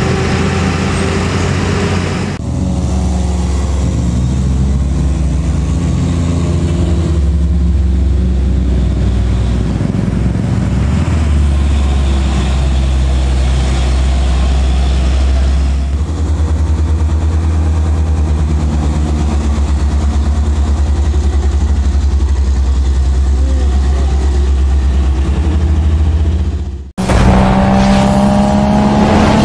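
Heavy diesel box-truck engines, a Hino 500 among them, pulling up a hill road: a loud, steady low drone. Near the end it cuts to a sound effect of a revving engine rising in pitch.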